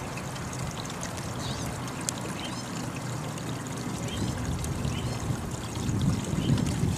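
Water running steadily down a Keene KSCR concentrator sluice, fed by its 12-volt pump, as heavy black sand is tipped in from a scoop. A louder low rumble comes in near the end.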